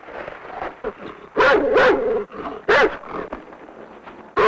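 A dog barking and whining in several separate short calls.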